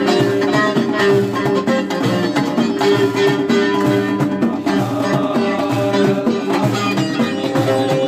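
Music led by plucked string instruments over a repeating bass pattern.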